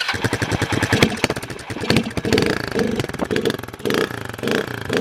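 Polaris RZR 170's small engine running just after a cold start, firing in fast even pulses with the revs surging up and down.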